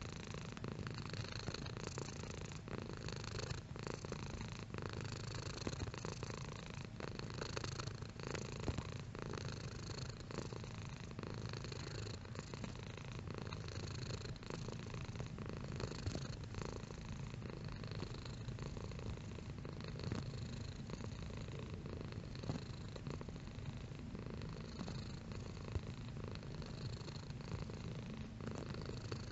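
Domestic cat purring steadily and continuously, a low rhythmic rumble heard close up.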